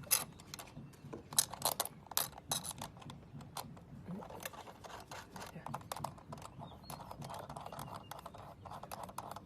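Irregular clicks and light scraping of metal deadbolt parts being handled and fastened together with a long screw.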